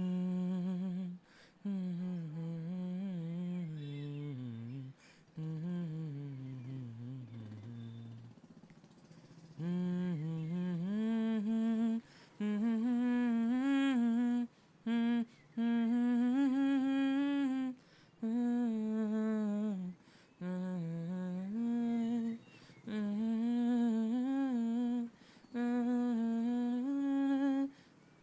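A person humming a melody without words, in phrases broken by short pauses; the tune sits lower for the first eight seconds, then comes in higher from about ten seconds in.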